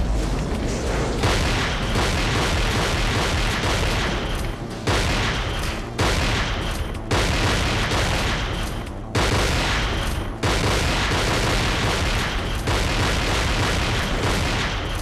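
Action-film gunfire and explosion sound effects: a loud, unbroken barrage with a fresh blast every second or two.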